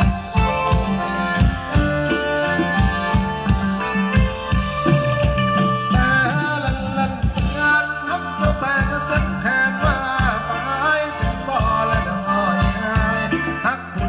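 Thai ram wong dance music from a live band: a steady drum beat under held keyboard chords. A wavering melody line comes in about six seconds in.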